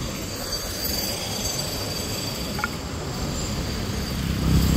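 Steady low rumbling outdoor noise with a faint high whine, swelling slightly near the end.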